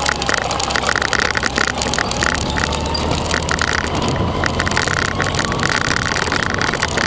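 Motorcycle engine idling with a steady low hum, and a higher buzz that keeps cutting in and out.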